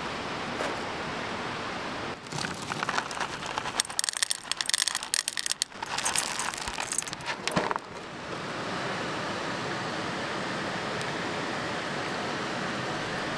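Panda Puffs puffed cereal poured from its box into a stainless steel bowl: a dense, irregular rattling patter of pieces striking the metal, starting about two seconds in and stopping about six seconds later. A river rushes steadily underneath.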